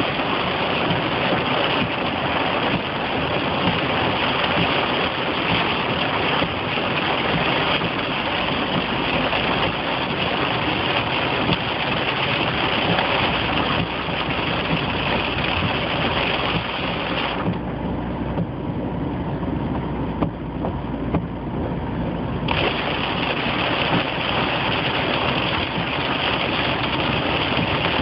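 Heavy rain hitting a moving car's roof and windscreen, heard from inside the cabin as a loud, steady hiss over the car's engine and road noise. The upper hiss drops away for about five seconds past the middle, then returns.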